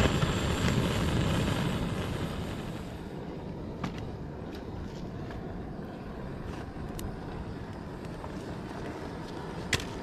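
Handheld gas torch on a gas canister roaring as it lights campfire kindling, dying away about two seconds in. Then the wood fire burns with a steady hiss and a few scattered crackles and pops.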